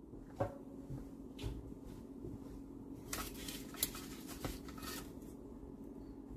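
Light kitchen handling sounds: a few soft clicks and knocks and a brief rustle, with one sharper click a little before the four-second mark, over a low steady hum.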